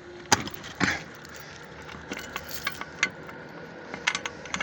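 Metallic clicks and clanks of a truck trailer's rear door latch and seal being handled, with a sharp knock about a third of a second in and another just before a second, then lighter scattered clicks.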